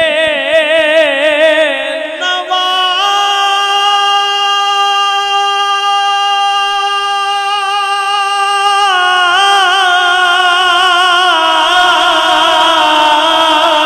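A man's amplified voice singing a naat, drawing out one long wordless note with no instruments. The note wavers at first, is held steady for several seconds, then steps down in pitch in the last few seconds.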